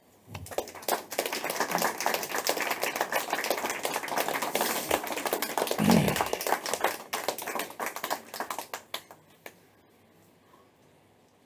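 Audience applauding: dense, irregular hand clapping that starts about half a second in and dies away near the end.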